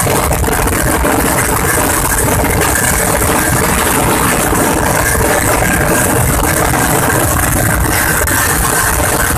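Auto-rickshaw (tuk-tuk) engine running steadily and loudly on the move, with no break or change in pitch.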